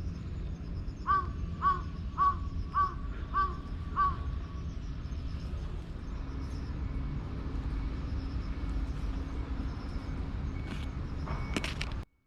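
A bird calling six times in quick succession, about one harsh call every 0.6 s, over a steady low background rumble.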